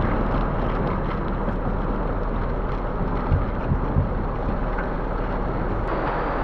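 Water carrying juvenile ayu gushing steadily through a large clear plastic release hose from a transport tank into the river below, a continuous rushing noise.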